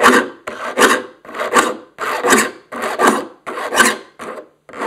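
Saw file rasping through the teeth of a crosscut handsaw, filing each tooth to a crosscut bevel. Even, regular strokes, about one every three-quarters of a second, each a short scratchy rasp.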